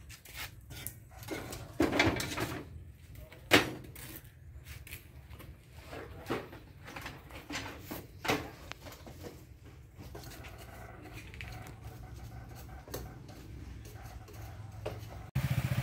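Plates and bowls being handled on a wooden table: a few scattered sharp knocks and clinks over a low steady hum.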